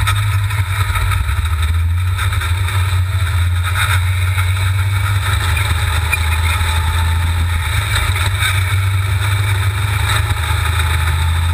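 V8 engine of a dune buggy running under steady throttle, a loud constant low drone whose pitch barely changes.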